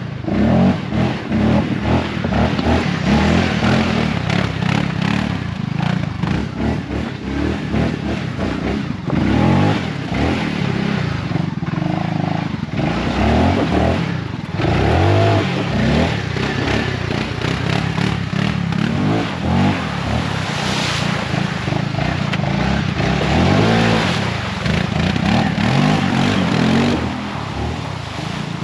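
Segway Snarler 570 ATV engine revving up and down as the quad crawls over rocks and mud, its pitch rising and falling with the throttle, with some clatter and scraping from the rocks under the tyres.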